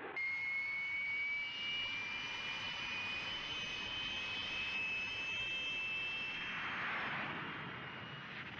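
Turboméca Marboré turbojets of Fouga Magister jets: a high whistling whine that rises slowly in pitch, joined near the end by a growing rush of jet noise.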